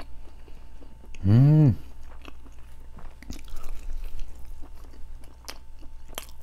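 Close-up mouth sounds of a man biting into and chewing a slice of pizza, with scattered small clicks. About a second in comes a short hummed "mmm" that rises then falls in pitch.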